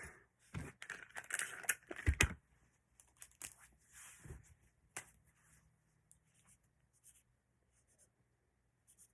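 Close handling noises: rustling and scraping with a few sharp knocks, busiest in the first two and a half seconds, then short scratches and clicks that thin out.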